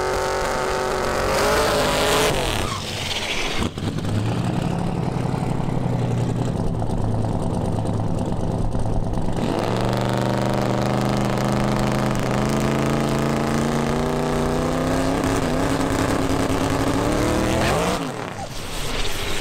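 Twin-turbo LS V8 of a Buick Skylark drag car running at low, steady revs, then revving up about ten seconds in and held high and steady for about eight seconds during a burnout, dropping back near the end.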